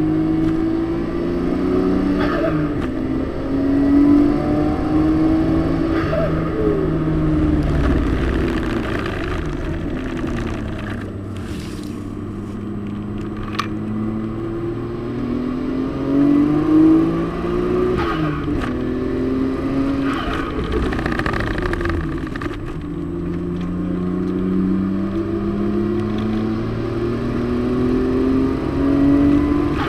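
Car engine heard from inside the cabin while driving hard on a race circuit: revs climb through the gears with sharp drops at each upshift, and fall away for long stretches when slowing for corners. Steady road and wind noise underneath.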